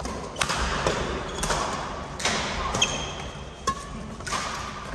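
Badminton doubles rally: rackets striking the shuttlecock in a string of sharp cracks, several times over, with court shoes squeaking on the floor, echoing in a large hall.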